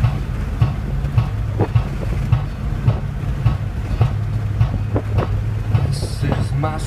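Music from a car stereo: an instrumental passage with a steady beat, about one and a half to two beats a second, over the low road and engine hum inside a moving car. A singing voice comes in near the end.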